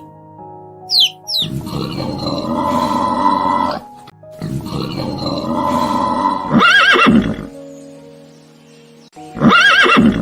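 A horse neighing over background music: two long rough calls, then two short whinnies, the last near the end.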